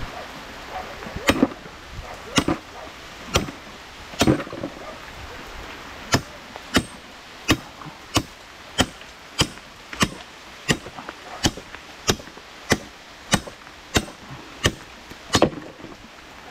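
Hammer blows on a locked metal chain, about twenty sharp ringing strikes: a few uneven ones at first, then a steady one roughly every two-thirds of a second. The chain's lock is being broken open because the key was forgotten. Steady rain hisses underneath.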